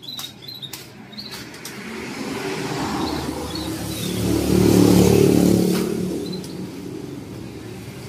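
A motor vehicle passing on the road, its engine growing louder to a peak about five seconds in and then fading away. Small birds chirp briefly near the start and again near the end.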